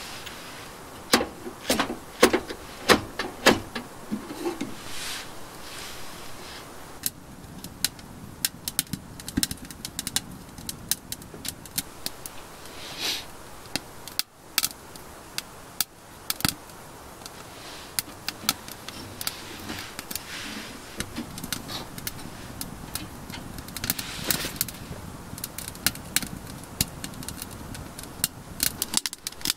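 Kindling crackling and popping as it catches in a small titanium wood stove. Sharp metallic clicks and clinks come from the stove's door and firebox being handled, and are loudest in the first few seconds.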